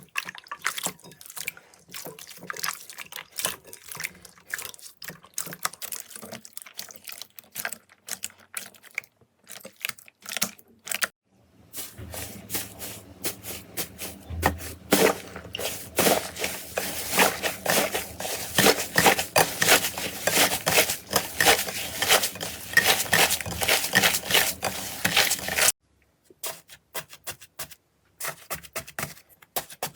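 Slime being squished and worked by hand, making a dense run of sticky clicks, pops and crackles. Several short clips follow one another with abrupt changes; the longest, in the middle, is the loudest and most crackly, over a low hum.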